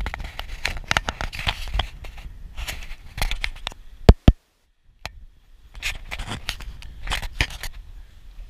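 Irregular sharp clicks, scrapes and knocks. Two very loud knocks come about four seconds in, and the audio drops out completely for about half a second after them.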